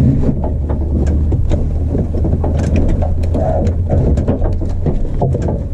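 Renault Clio 172 turbo race car's engine running steadily, heard inside the stripped cabin, with many sharp clicks and rattles over it. The drone changes about five seconds in.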